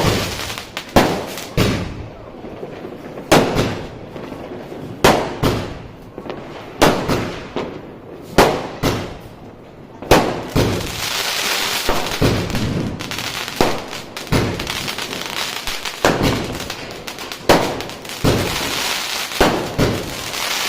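A 60-shot fireworks cake firing in sequence: a sharp bang about every second and a half, with stretches of crackling hiss between some of the shots.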